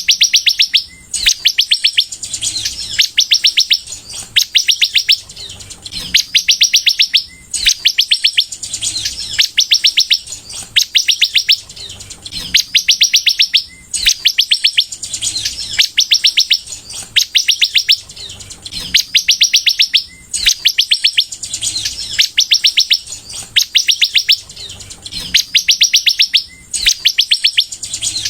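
Sunbird (the 'kolibri' of Indonesian bird-keepers) singing in full voice: bursts of very fast, high-pitched chips, each under a second long, repeating about once a second with short pauses between.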